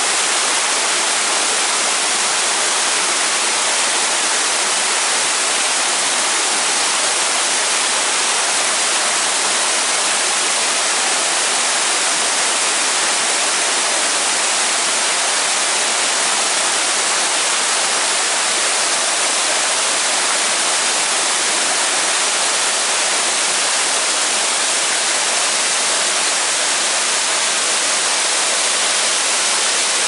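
Waterfall pouring down a tall rock face and splashing onto rocks: a steady, even rush of falling water, mostly high-pitched.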